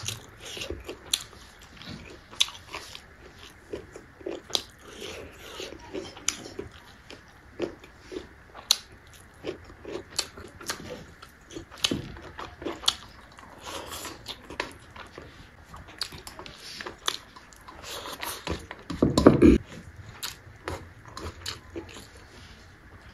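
Close-miked chewing and biting of rice with fermented bamboo shoot (soibum) dishes: many short crunches and wet mouth clicks. One louder, lower sound comes about three-quarters of the way through.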